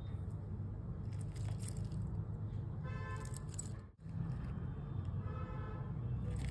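Light metallic clicking of a stainless-steel watch bracelet being handled, in two short runs, over a steady low rumble. A brief pitched tone sounds twice, about three and five seconds in, and the sound drops out for an instant just before four seconds.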